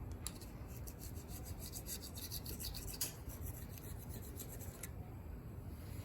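A blade scraping old Honda Bond silicone sealant off the aluminium K24 engine block's mating surface, in many quick, short strokes.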